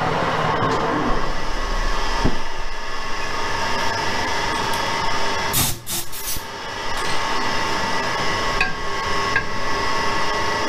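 Metal lathe spinning an alloy wheel during centre-bore boring with a carbide boring bar, its low hum stopping about two seconds in as the lathe is switched off. A short noisy burst comes about six seconds in, over a steady machine hum that carries on throughout.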